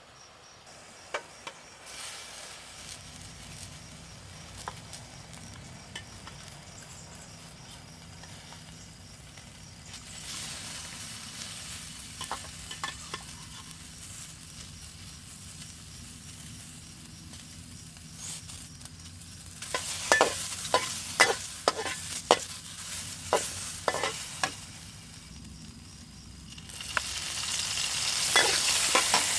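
Cow intestine and vegetables sizzling as they are stir-fried in a pan, the sizzle swelling in waves. A run of sharp clicks of the spatula against the pan about two-thirds of the way through, and the sizzle is loudest near the end.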